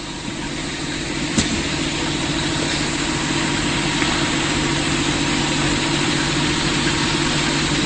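A steady engine-like drone: a low hum with a hiss above it, swelling slightly over the first two seconds and then holding level. There is a faint click about a second and a half in.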